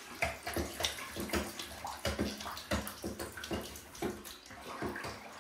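Bathwater splashing and sloshing in small irregular splashes as a hand moves a wind-up turtle toy through it.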